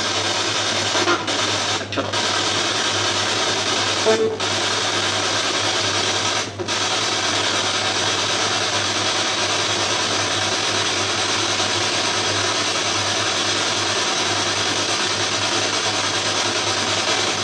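Ghost box (spirit box) radio sweeping through the stations: a steady hiss of static, cut by a few brief dropouts in the first seven seconds. The investigators take snatches in the noise for spirit replies, captioned 'Food!'.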